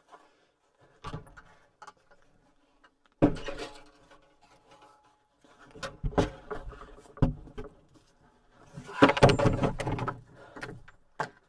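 Wooden door panels of a small timber cabin being unlatched and swung open, with footsteps. There is a sharp knock about three seconds in, then a run of wooden bumps and scrapes, loudest about nine seconds in.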